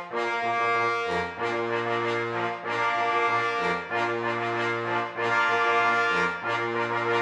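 Intro music with held brass chords over a bass line that changes note about once a second.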